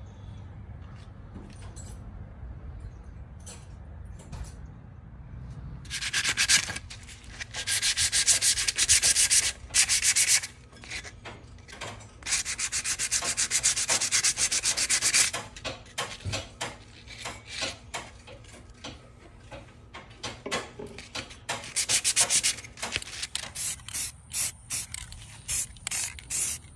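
Hand sanding a rusty steel bracket with folded sandpaper: a quick back-and-forth scraping that comes in long runs of rapid strokes through the middle, with slower, scattered strokes before and after.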